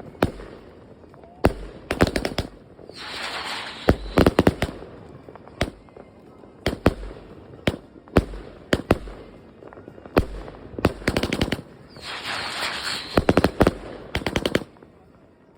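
Iskra Razic 25 mm firework battery firing a run of shots: a string of sharp bangs in quick clusters, with two longer stretches of noisy crackle about three and twelve seconds in.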